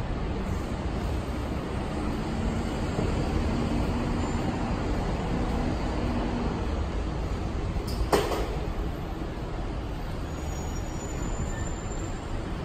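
Steady city street ambience of traffic noise, with a low engine hum a couple of seconds in and one sharp clack about eight seconds in.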